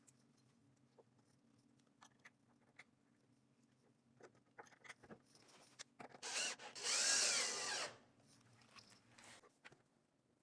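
Power drill-driver running for about two seconds, its whine bending up and down, preceded by scattered small clicks and taps of hardware being handled: screws being driven on the door hinges.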